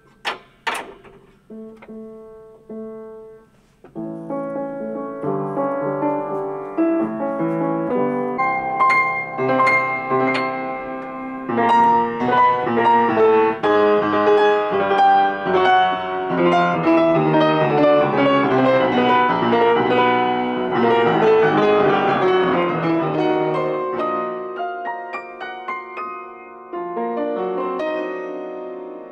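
Wurlitzer upright piano being tuned: a single note struck repeatedly, about once a second. From about four seconds in, the piano is played with flowing, many-note passages and a falling run near the end.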